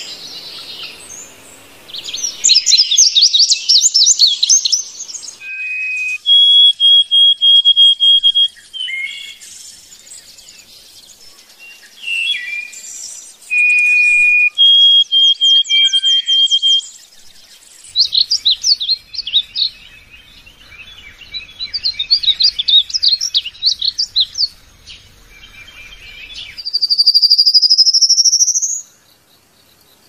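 Small songbirds singing and calling: bursts of fast chattering trills alternate with short held whistled notes, and a long rising whistle comes near the end before the sound stops.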